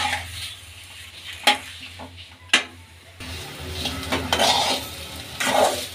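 Metal spatula stirring potato slices frying in oil in an aluminium pan. Three sharp clinks of the spatula against the pan come in the first three seconds. After that comes scraping and frying sizzle, which swells twice.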